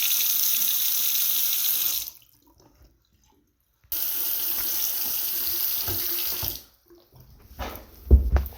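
Newly installed bathroom sink faucet running into the basin for about two seconds, shut off, then run again for about three seconds. A few knocks follow near the end, the loudest a dull thump.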